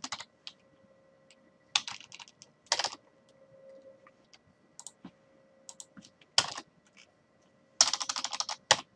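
Computer keyboard being typed on: scattered single keystrokes and short bursts of keys, with a quick run of rapid keystrokes near the end.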